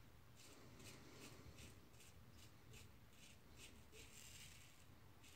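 Faint scraping strokes of a double-edge safety razor cutting stubble through shaving lather on the chin and neck: a quick series of about a dozen short scrapes, with a couple of longer ones near the end.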